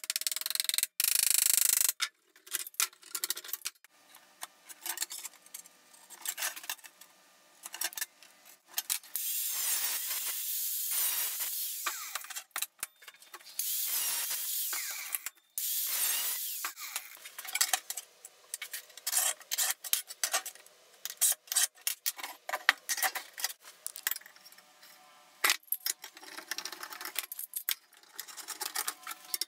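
A hammer tapping on sheet metal clamped over a bench edge. In the middle, a hand-held angle grinder cuts through the sheet metal in several sustained, high-pitched passes. Near the end, metal bar clamps clack as they are loosened.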